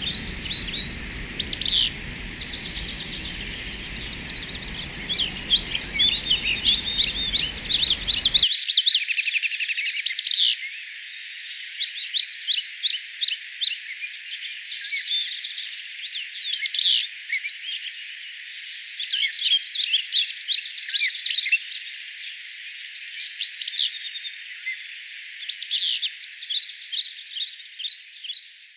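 Several songbirds singing and calling together in a dense, continuous chorus of quick high chirps and trills. A low background rumble under the birds drops out about eight seconds in.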